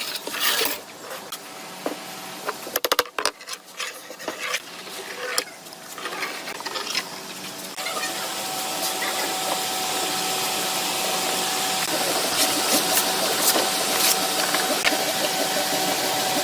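Wooden pieces being handled, with scattered knocks and scraping. About eight seconds in, a small electric power tool starts and runs steadily with a constant whine.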